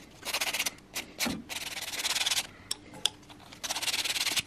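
Thin wooden wedge being hand-sanded with a piece of abrasive paper: quick rasping rubbing strokes in three bouts, a short one at the start, a longer one of about a second in the middle, and another near the end.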